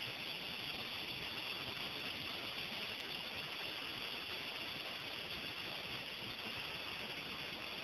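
Steady, even hiss of shoreline ambience, with no single sound standing out.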